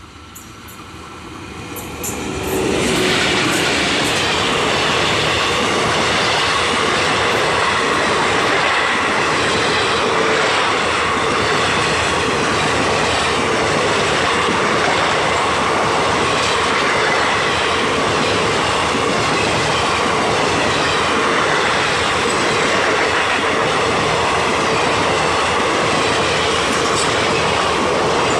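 A passenger train of ICF coaches, hauled by a WAP4 electric locomotive, passing close by at speed. The noise builds over the first two or three seconds as the locomotive arrives, then holds as a loud, steady rush of wheels on rail as the coaches go by.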